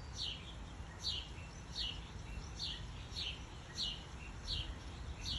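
A bird repeating a short, high, falling chirp at an even pace, about every three-quarters of a second, over a low steady hum.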